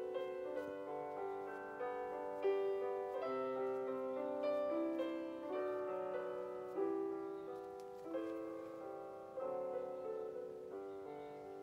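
Background music: a slow solo piano melody, notes struck about once a second and left to ring and fade.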